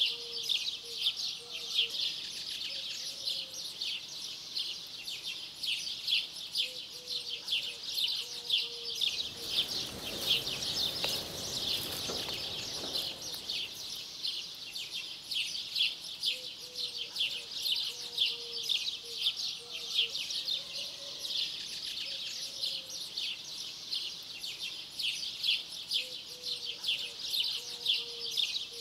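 Countryside ambience: a dense, continuous chorus of high, rapid chirping from many small birds. A soft rush of noise swells and fades about ten to fourteen seconds in.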